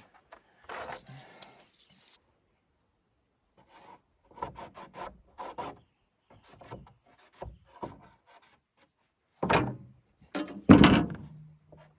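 Short scraping strokes in quick groups as dashes are marked on a chainsaw bar guard, followed near the end by two louder knocking scrapes.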